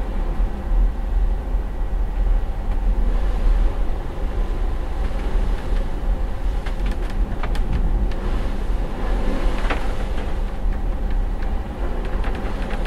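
Inside a ship's cabin on a ferry during a fairly rough sea crossing: a steady low drone from the ship's engines and machinery, with a run of clicks, knocks and creaks in the second half, including a brief high squeak.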